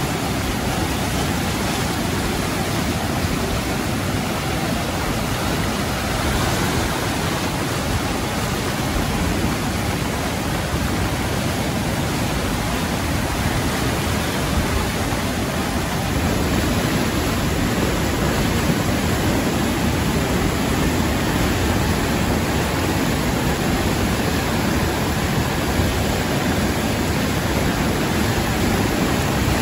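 River in flood, swollen by seasonal rains, rushing through churning rapids: a loud, steady wash of water noise, slightly louder from about halfway through.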